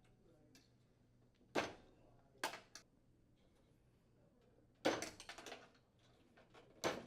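Plastic spark switches being pulled off a gas range's burner valve stems one after another. Several short clicks and clatters come a second or two apart, with a quick run of small rattling clicks about five seconds in.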